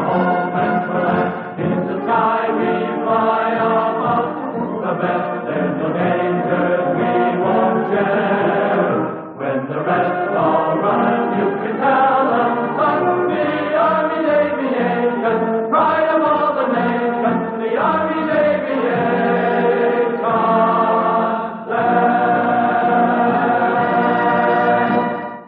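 Film-score music with a wordless choir singing sustained chords, in phrases that shift pitch every second or two.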